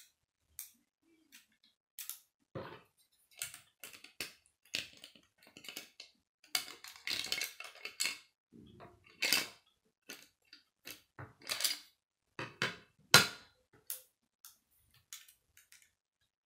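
Hard plastic clicking and clattering as a K'nex model toaster is handled and a pink plastic plate is slid into its top slot. The clicks come irregularly, one or several at a time, the sharpest about four-fifths of the way through.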